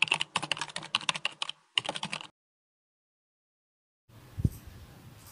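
Rapid run of clicks, like fingers typing on a keyboard, for about two seconds with one short break, then cut off abruptly. A single dull thump about four and a half seconds in.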